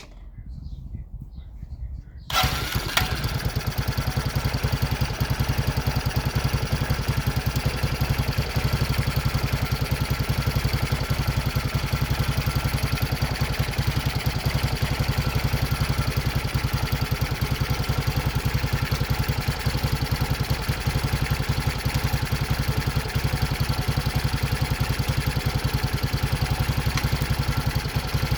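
Racer 164FML 200cc single-cylinder pushrod motorcycle engine with a balance shaft, freshly rebuilt, starting suddenly about two seconds in. It then idles steadily on its first run after the repair.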